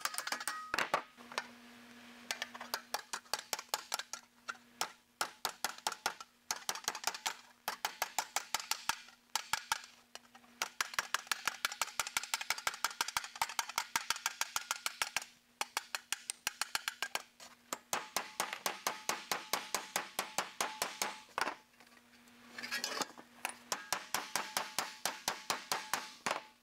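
Hand hammer tapping on the edge of a sheet-metal motorcycle fender held over a pointed dolly, knocking the side flange down. Light, rapid blows, several a second, in runs with short pauses between, the metal ringing faintly.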